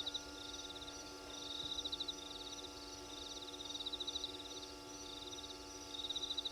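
Night insects, likely crickets, chirping in rapid high trills that repeat every second or so, over a faint steady hum.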